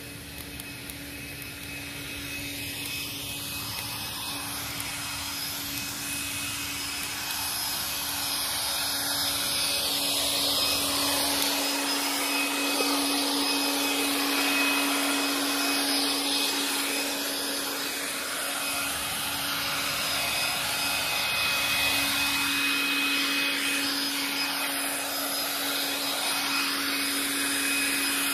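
Cordless leaf blower running: a steady motor whine over rushing air, building up over the first several seconds and then holding.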